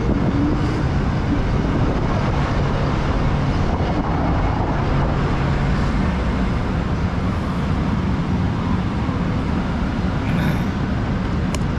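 Steady city street traffic: motor vehicles running close by, with a low, even engine hum under the rumble. A brief sharp click near the end.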